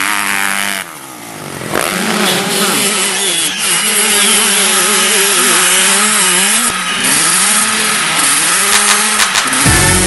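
Dirt bike engine running hard on a motocross track, its pitch rising and falling as the rider works the throttle through jumps and corners. Its level dips briefly about a second in.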